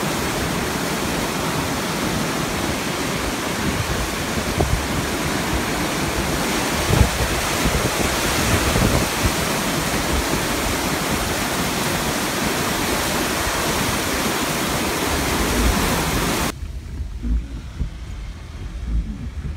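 Floodwater rushing through a spillway in a steady, loud rush of white water. Near the end it cuts off suddenly, leaving low gusts of wind on the microphone.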